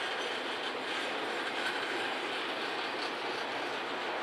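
Autorack freight cars rolling past: a steady noise of steel wheels running on the rails, with a few faint clicks.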